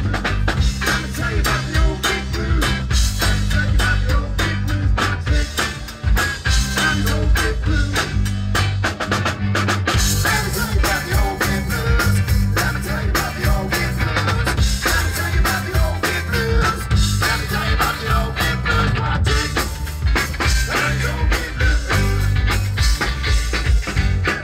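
Live band music from drum kit, electric guitar and bass guitar, with steady drum beats and brighter cymbals from about ten seconds in.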